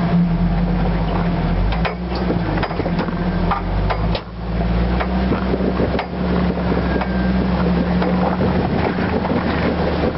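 Jeep XJ-based rock buggy's engine running steadily at low speed on a rocky trail, its note shifting about four seconds in, with scattered sharp knocks from the chassis and tyres on rock.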